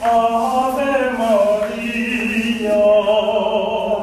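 A group of adults singing a chant-like song together in long held notes. The last note is held through the second half and stops at the end.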